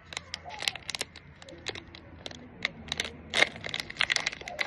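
A small packaging bag crinkling and crackling in the hands as it is opened, with many irregular sharp crackles.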